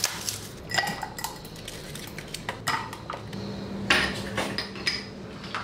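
Kitchen glassware and utensils clinking: a series of sharp, ringing clinks as ice cubes are dropped into a glass of black coffee on the counter.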